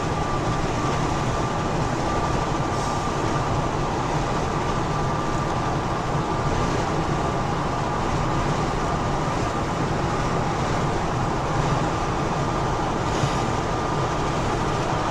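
Steady road noise of a vehicle travelling on a freeway, an even hiss and rumble with a faint high steady tone running through it.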